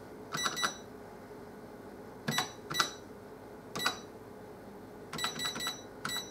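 Olivetti ECR 7700 cash register keypad being pressed, each key press giving a short electronic beep with a click. The beeps come singly and in quick runs of three or four, as letters are keyed in one by one with several taps per letter.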